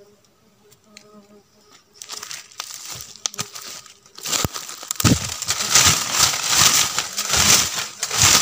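Faint buzzing of stingless bees, then close crackling and rustling right on the microphone that grows loud about five seconds in.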